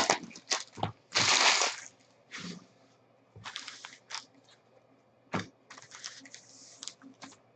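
Plastic wrapping crinkling and tearing as boxes and packs of trading cards are opened. The loudest tear comes about a second in, followed by scattered smaller crackles.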